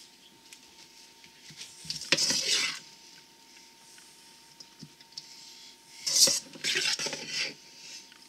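A spatula scraping and tossing salad in a large stainless steel mixing bowl. Two louder spells of scraping and clattering come about two seconds in and again about six seconds in, with quieter stirring between.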